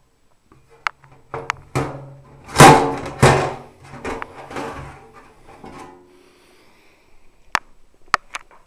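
The sheet-metal top cover of a TEAC AG-10D amplifier being lifted off and handled: a few sharp knocks, then a loud double clatter about two and a half seconds in that fades over the next couple of seconds, and a few sharp clicks near the end.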